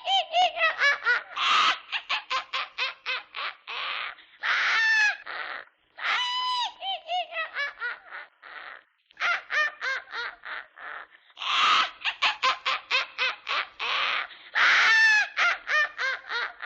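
Bird-like calls: rapid runs of short, sharp notes alternating with longer calls that fall in pitch, repeating in bouts.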